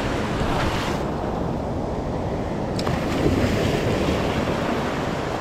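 Ocean surf breaking and foamy wash swirling around the angler's legs in the shallows, a steady rush of water, with wind buffeting the microphone. A single light click comes a little under three seconds in.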